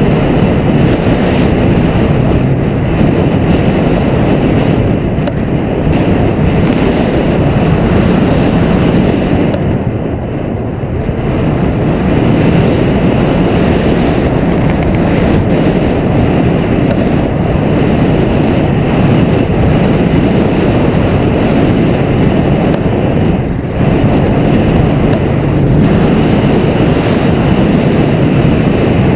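Loud, steady rumble of wind rushing over a wing-mounted action camera's microphone on a hang glider in flight, easing slightly about ten seconds in.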